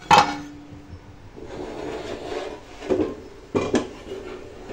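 Steel pots and utensils clanking as they are handled and set down: a loud metal clank at the start that rings briefly, some scraping, then a few more clanks near the end.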